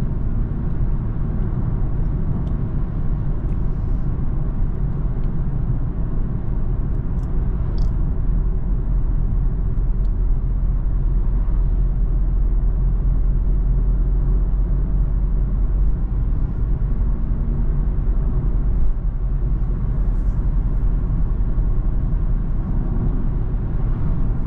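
Steady in-cabin road rumble of a 2020 BMW 330i sedan cruising at an even speed: low tyre and road drone with a faint engine hum beneath, no change in pace.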